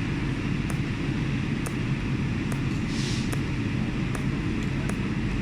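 HS-ADS10 cold welding machine laying pulsed spot welds on 3 mm stainless steel plate: sharp ticks at irregular intervals, about one or two a second, over a steady low rumble.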